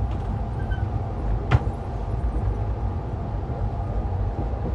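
Passenger train running, heard from inside a sleeper coach: a steady low rumble, with one sharp click about a second and a half in.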